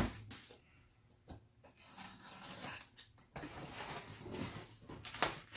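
A cardboard box being set down with a sharp knock, then opened: scratching and rubbing of packing tape and cardboard flaps being cut and pulled apart.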